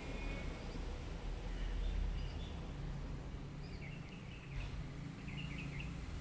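Cats eating dry kibble from a plate, over a steady low rumble of wind on the microphone, with a few short bird chirps in the second half.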